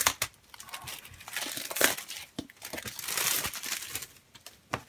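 Plastic shrink-wrap film being peeled off a boxed iPad Pro and crumpled: irregular crinkling and crackling with sharp clicks, busiest around the middle.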